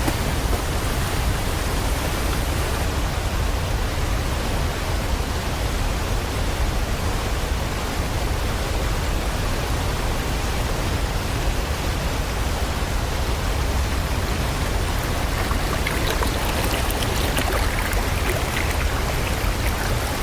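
Steady rushing of a rocky mountain stream, water pouring continuously over stones, a little brighter and splashier after about sixteen seconds.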